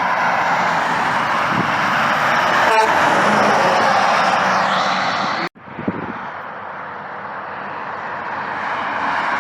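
Highway traffic going by: the steady rush of tyres and engines from passing vehicles. It breaks off abruptly about five and a half seconds in, then starts again quieter and slowly grows louder.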